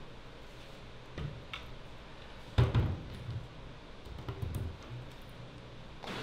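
Changing-room locker being handled: a few knocks and clicks from its door and its key lock, with the loudest knock about two and a half seconds in.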